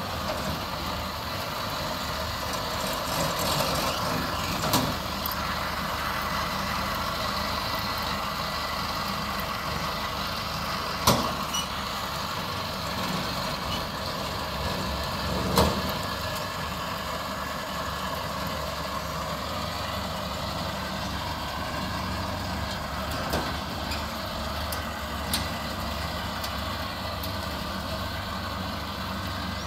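Tracked combine harvester's engine running steadily as the machine crawls down ramps onto a barge. A few sharp clanks come about 5, 11 and 15 seconds in.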